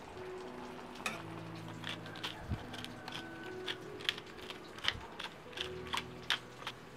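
Wooden pepper mill being twisted to grind black pepper, its burr mechanism making a run of dry clicks about two to three times a second, starting about a second in.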